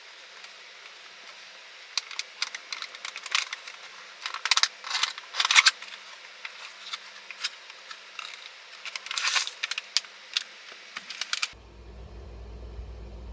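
A run of light clicks and clinks from small hard objects being handled, thickest in the middle. About eleven seconds in it cuts abruptly to a low steady hum.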